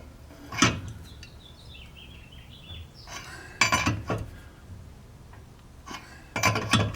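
Metal tools and hardware clinking and clattering as they are handled: a single clink about half a second in, then two bunches of clattering a little after three seconds and again near the end.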